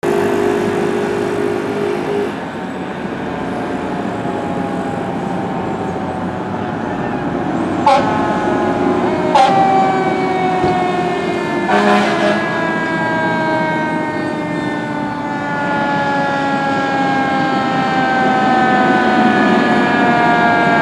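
Responding fire trucks' sirens wailing in long, slowly falling tones over the rumble of truck engines, with short sharp horn blasts about 8, 9 and 12 seconds in.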